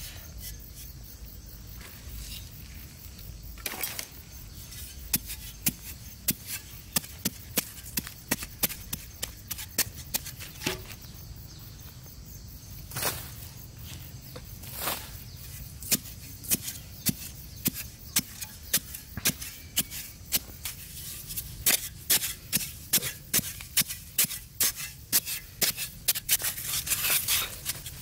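A small hand digging blade striking hard, dry soil again and again, about two strokes a second, with now and then the scrape of loosened dirt being scooped out by hand as a hole is dug.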